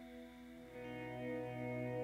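Background music: soft sustained chords that swell louder as new notes come in shortly after the start.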